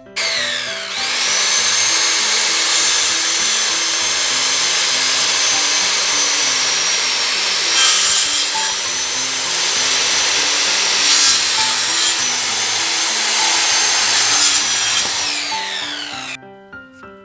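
Electric power saw spinning up with a rising whine, then cutting wood steadily for about fifteen seconds before winding down and stopping near the end. Background music plays faintly beneath it.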